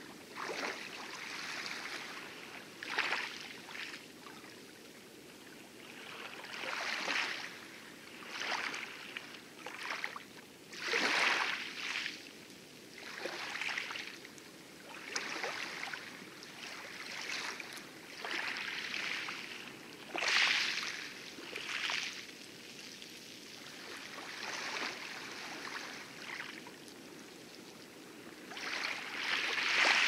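Water splashing around a small rowboat as it is rowed, with a surge of splashing and rushing water about every two seconds in time with the oar strokes, over light lapping wavelets.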